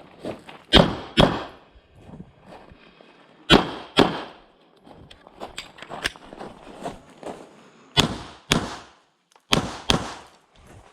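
Glock 17 9mm pistol fired in four quick pairs of shots, the two shots of each pair about half a second apart and the pairs a few seconds apart, with fainter knocks between them.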